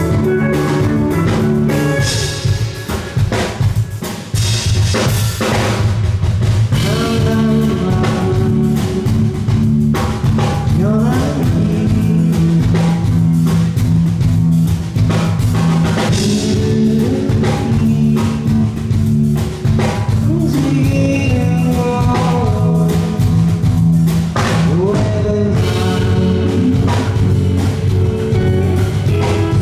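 Live rock band playing a song on stage: drum kit keeping a steady beat under bass and guitar, with singing over it.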